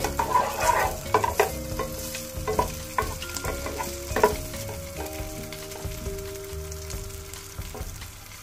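Diced smoked bacon sizzling in the bottom of a nonstick pot while a wooden spatula stirs it, knocking and scraping against the pot in a quick run of strokes over the first four seconds or so, then the frying goes on more quietly.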